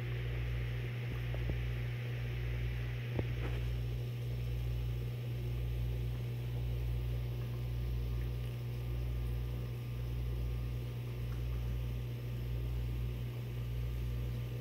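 Steady low electrical hum of aquarium equipment running, with a deeper throb beneath it that drops out briefly about once a second.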